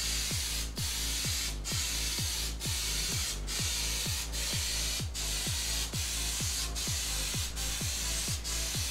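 Aerosol spray can of grey primer surfacer hissing steadily as a coat is sprayed on.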